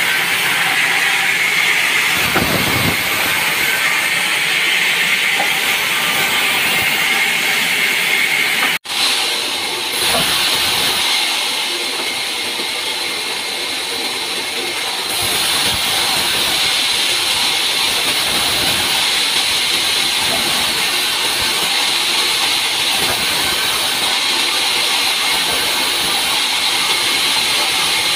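Large vertical sawmill band saw running and cutting wood slabs: a loud, steady hissing noise from the blade with the machine's running underneath. The sound cuts out briefly about nine seconds in, then carries on.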